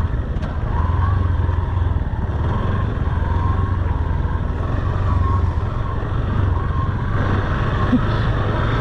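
Motorcycle engine running steadily, a continuous low hum with a faint wavering whine above it.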